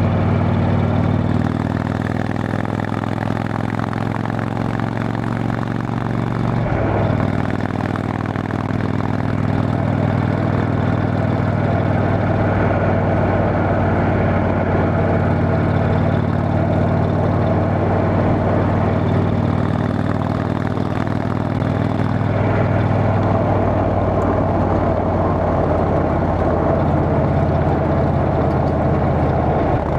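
Indian Chieftain Dark Horse V-twin running steadily through a Freedom Performance aftermarket exhaust, its exhaust leak repaired with a new gasket. The engine note changes briefly about seven seconds in and again a little past twenty seconds.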